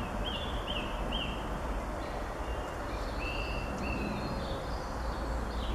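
Small garden birds chirping in short high notes, several in quick succession near the start and another run about halfway through, over a steady low rumble of background noise.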